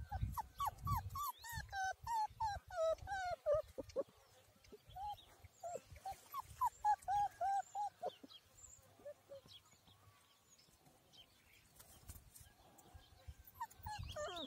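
Puppy whimpering in short, high, repeated cries. They come in a quick run through the first four seconds, another run about six to eight seconds in, and a few more near the end.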